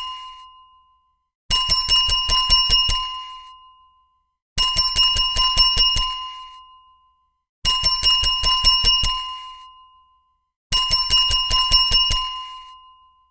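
Hotel reception desk bell struck rapidly over and over: four runs of about eight quick dings, each run about every three seconds, ringing out between runs.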